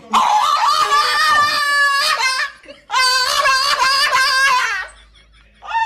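A French bulldog howling in long, high, wavering cries, three in a row: two of about two seconds each and a third beginning near the end.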